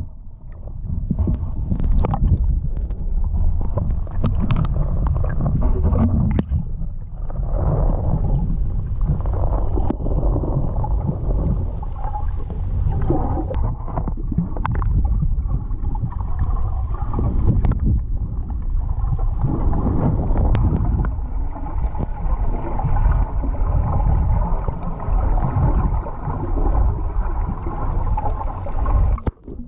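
Muffled, low rumbling and gurgling of water around an action camera's waterproof housing as it is moved underwater and at the surface.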